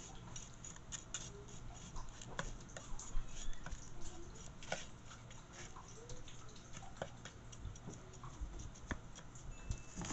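Metal spoon spreading crushed graham cracker crumbs in a metal pan: irregular light clicks, taps and scrapes as the spoon pushes through the crumbs and touches the pan.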